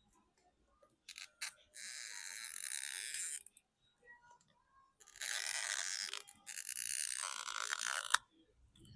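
Scraping as a tool works the phone's glued-down battery loose from its adhesive, in three stretches of a second or two each, with a few small clicks.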